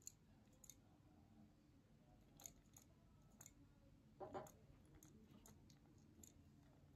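Near silence: room tone with a few faint, scattered clicks and light handling taps, the largest about four seconds in.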